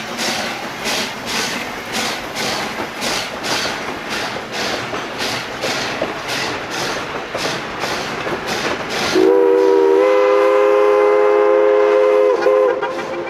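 1917 Baldwin 2-8-0 steam locomotive No. 81 working a train, its exhaust chuffing about three times a second. About nine seconds in, its steam whistle blows one long chord of several notes for about three and a half seconds, dipping briefly just before it stops.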